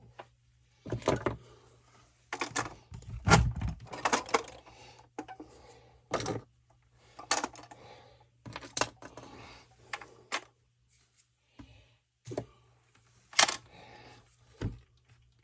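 Metal hand tools clinking and clattering as they are moved and rummaged through, a string of separate sharp knocks with short pauses, the loudest about three seconds in and again near the end.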